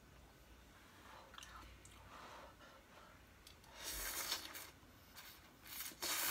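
A person slurping Korean ramen noodles off chopsticks: two loud slurps, one about four seconds in and another about six seconds in, with faint clicks before them.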